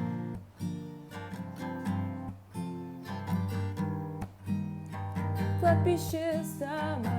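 Acoustic guitar strummed in an even rhythm, chords ringing between strokes, with a young woman's voice coming in to sing near the end.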